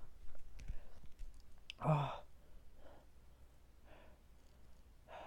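A man sighing and breathing hard from the burn of extremely hot peppers: a loud voiced sigh about two seconds in, then softer breaths about once a second.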